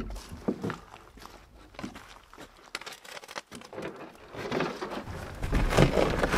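Canoe and gear being handled at the water's edge: scattered light knocks and clatter, then, about four and a half seconds in, a louder, building rush of scraping and rustling with a low rumble.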